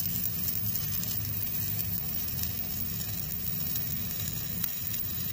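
Stick (SMAW) arc welding with a 7018 electrode on the root pass: the arc gives a steady, crackling sizzle over a low hum.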